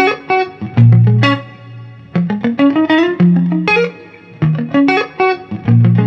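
Intro music led by a plucked guitar melody over low bass notes, the notes struck in quick runs and left to ring.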